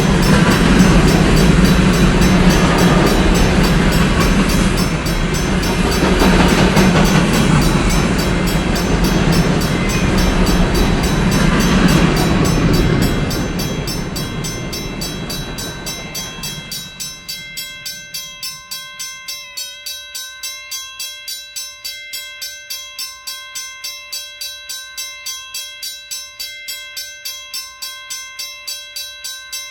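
A train rolls through a grade crossing with a loud, steady rumble that fades away over a few seconds from about thirteen seconds in. The crossing bell is then heard alone, ringing evenly at about two strikes a second.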